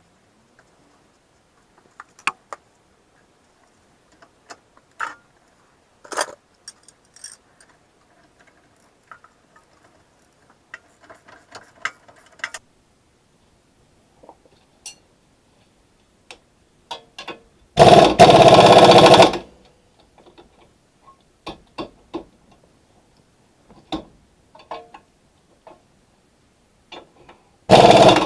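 Scattered clicks and clinks of tools on metal, then two loud bursts of a power impact wrench hammering, the first about a second and a half long about eighteen seconds in, the second starting near the end.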